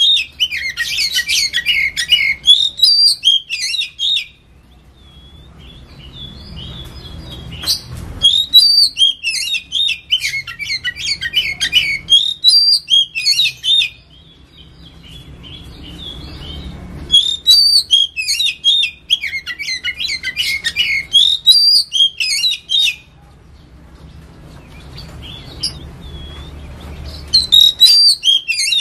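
Oriental magpie-robin (kacer) singing in bouts of rapid, high, varied warbling notes. Each bout lasts about five seconds, with pauses of about three to four seconds between them.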